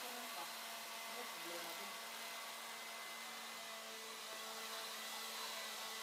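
Electrolux cordless stick vacuum cleaner running steadily: a constant motor whine over a rushing hiss of air.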